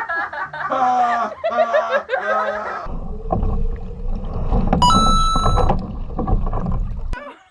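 A voice for the first few seconds, then a steady low rumble with a brief high tone about five seconds in; the rumble cuts off suddenly near the end.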